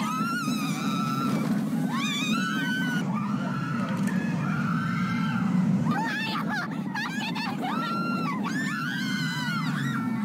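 Many people screaming at once in high-pitched, overlapping shrieks that come in waves, over a steady low rumble: riders on an amusement-park thrill ride.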